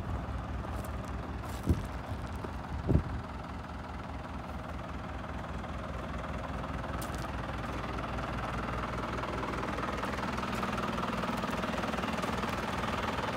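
Mitsubishi Rosa minibus's 4M51 four-cylinder diesel idling steadily, slowly growing louder. Two short sharp knocks sound about one and a half and three seconds in.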